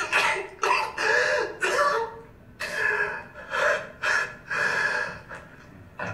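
A man breathing in loud, uneven gasps, about nine in a row.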